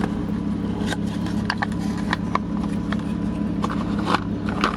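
Several light, sharp clicks and taps of plastic door trim and switch parts being handled and pressed into place, over a steady low hum.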